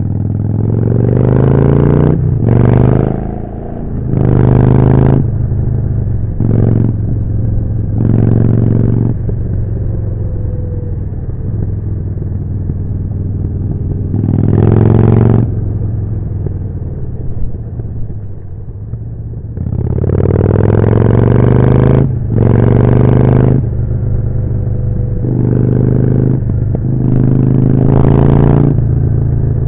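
Harley-Davidson Forty-Eight's V-twin engine through a Jekill & Hyde exhaust, ridden hard. The engine note climbs in loud surges of throttle every few seconds and drops back between them.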